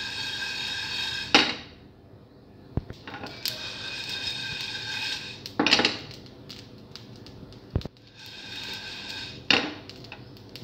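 Whole spices dry-roasting in a steel frying pan, rattling across the metal as the pan is shaken in three spells of a few seconds, each ending in a loud clatter of the pan. A couple of single sharp pops come from the spices cracking in the heat.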